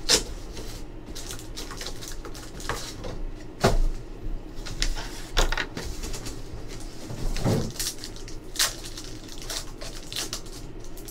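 A cardboard trading-card box being opened and handled, then a foil card pack crinkling in the hands: scattered clicks, taps and rustles, with a heavier knock about a third of the way in and another past the middle.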